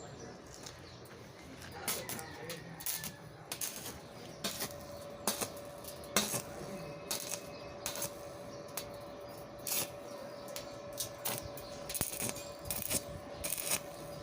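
Sharp metallic clinks and taps at irregular intervals, about one or two a second, with a faint steady hum joining about halfway through.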